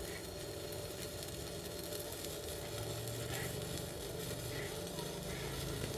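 Stick (MMA) arc welding with a stainless-steel electrode from a CTC-200T inverter welder: a steady crackling sizzle from the arc. It is set to 105 amps, strong enough to burn through the stainless plate.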